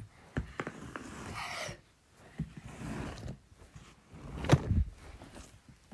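Plastic pop-it fidget toys being handled and gathered up: rustling and scattered clicks, with the loudest thump about four and a half seconds in.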